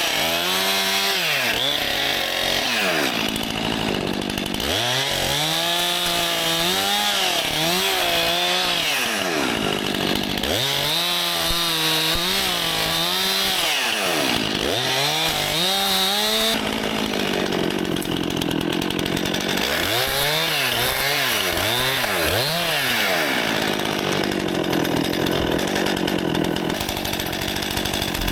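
Stihl MS261 two-stroke chainsaw running at high revs, its pitch rising and falling over and over as the throttle and load change.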